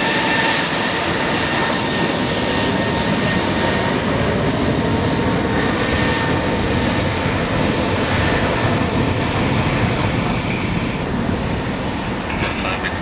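Airbus A320's jet engines at takeoff thrust: a steady, loud rush of noise with a high whine on top. The whine fades out about two-thirds of the way through, and the sound eases slightly near the end.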